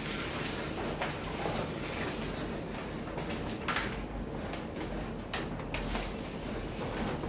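Large sheet of adhesive vinyl film rustling and crinkling as it is lifted and handled over a wet plastic board, with a few brief louder rustles.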